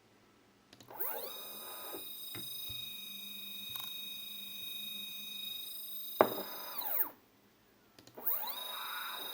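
Stepper motor on a 3D printer axis making a fast move at feed rate 3000: a whine that rises in pitch as it speeds up, holds several steady high tones, then falls away as it slows to a stop, with a sharp click just before. After about a second of quiet, a second move starts with the same rising whine.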